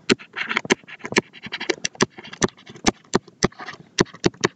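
Stylus tapping and scratching on a tablet screen during handwriting: an irregular run of sharp clicks, several a second, with faint scratching between them.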